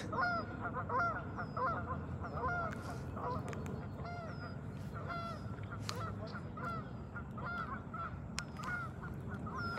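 A flock of geese honking, many short calls at slightly different pitches overlapping and repeating throughout.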